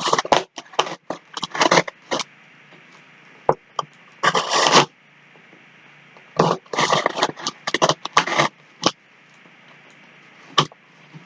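A mailed package being opened by hand: scraping and tearing in irregular bursts, with short pauses between them.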